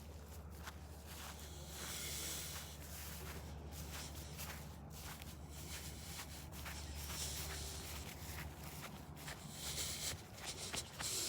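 Faint, irregular footsteps with scattered small clicks and rustles, over a steady low hum.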